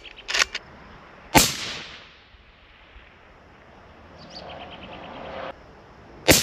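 Two suppressed rifle shots about five seconds apart from a 77/17 bolt-action rifle in .17 Hornet fitted with a titanium Otter Creek Labs .22-calibre suppressor. Each is a sharp crack from the supersonic bullet, followed by a trailing echo.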